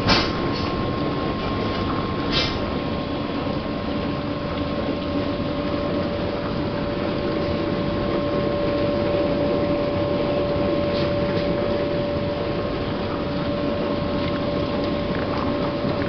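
Miele Professional commercial dishwasher running a wash cycle: its pump runs with a steady rushing of water, and a steady whine joins about two seconds in. A couple of light clicks sound in the first few seconds.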